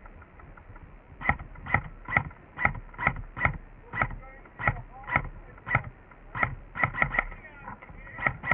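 Airsoft rifle firing single shots, each a sharp crack with a short ringing snap, at roughly two a second, with three quick shots in a row about seven seconds in.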